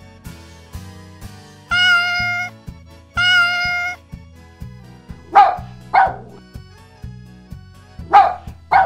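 Two long, even meows of a cat sound effect, then four short dog barks in two pairs from about five seconds in, over light background music.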